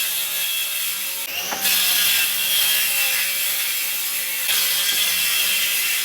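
Abrasive rubbing on a walnut tabletop, a steady scratchy hiss like sanding, broken briefly about a second and a half in.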